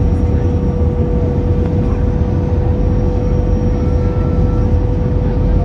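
Airbus A320 cabin noise on final approach with flaps extended: a steady, loud rumble of engines and airflow, with a steady engine hum running through it.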